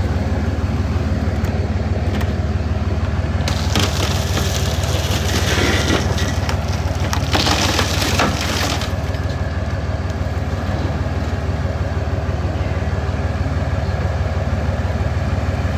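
A scrapyard grapple bites into a stripped GMC Envoy, busting through its glass. About three seconds in, glass cracks and sheet metal crunches for about five seconds. A steady low engine drone runs underneath.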